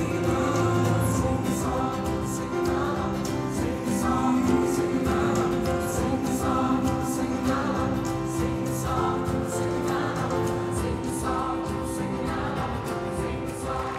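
A choir singing an upbeat gospel-style song with double bass accompaniment, over a steady beat.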